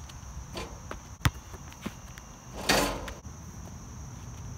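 A basketball hits the court hard about a second in, with a lighter bounce after it, as the ball drops from the rim after a two-handed dunk. A short burst of rushing noise follows near the three-second mark.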